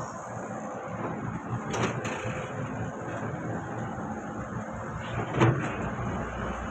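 Al-Ghazi Fiat tractor's diesel engine running steadily while soil slides off its raised tipping trolley. A knock comes about two seconds in and a louder one about five seconds in.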